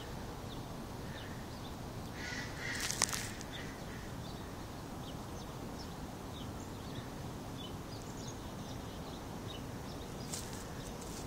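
Outdoor winter ambience: a steady low hiss with faint, scattered high chirps of small birds. A short call and a couple of sharp clicks come about two to three seconds in.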